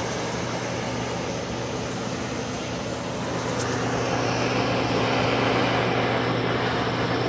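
Handheld gas torch burning with a steady flame hiss, melting seam wax into the joints between the slate pieces of a pool table. A constant low hum runs underneath, and the hiss grows a little louder about four seconds in.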